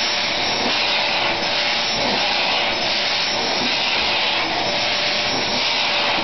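Dyson vacuum cleaner running steadily: a constant rush of air with a steady whine.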